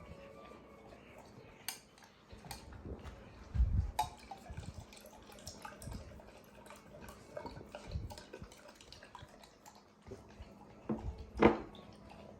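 A dog eating: scattered wet clicks, licks and soft knocks, the loudest knock about 11 seconds in.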